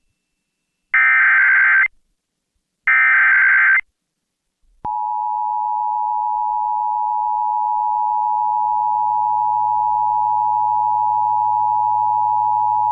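Emergency Alert System broadcast signal for an Immediate Evacuation warning: the last two of the three SAME header data bursts, each just under a second of shrill digital tones, then about a second of silence. The steady two-tone EAS attention signal starts about five seconds in and holds.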